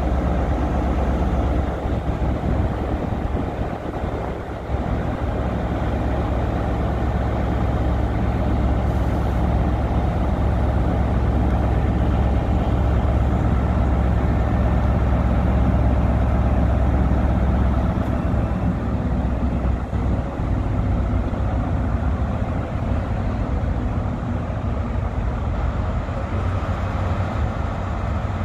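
Class 43 HST power car's MTU V16 diesel engine running steadily with a deep hum; about eighteen seconds in its note changes as the train pulls away.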